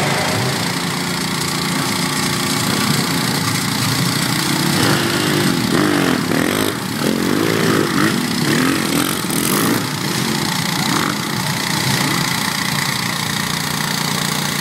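Engine of a lifted Bolens garden tractor running steadily as it pushes through the water, with its pitch rising and falling several times through the middle stretch.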